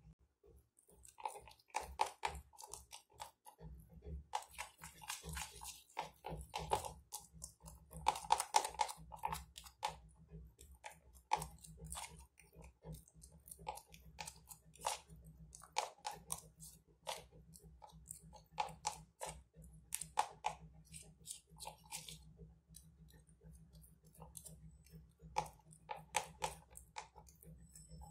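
Gram-flour batter being stirred by hand in a bowl with a little water: irregular clicks and scrapes of the utensil against the bowl, with a few denser stretches of mixing.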